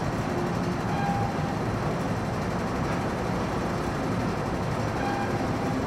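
MTR M-Train metro train standing at an underground platform, its equipment giving a steady hum and rumble.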